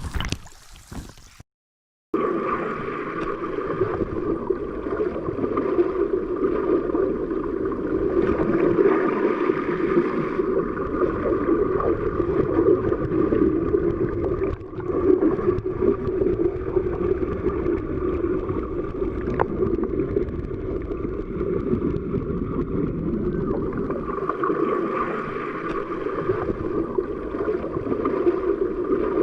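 Underwater ambience: a steady, muffled rush of water with bubbling gurgles, after a brief cut to silence about two seconds in.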